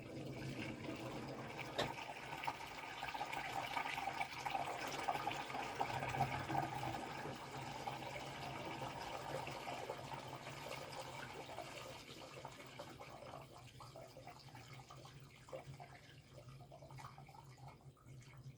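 Water running inside a Samsung Grande Tongbubble 16 kg top-loading washing machine (WA16A6374BW) cycling through its test mode, over a low steady electrical hum. The water noise is strongest early and grows fainter over the last several seconds.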